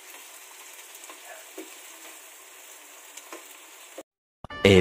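Chopped tomatoes, onions and peppers sizzling in a nonstick frying pan, with a few light scrapes of a spatula stirring them. The sizzle cuts off suddenly about four seconds in, and a narrator's voice begins right at the end.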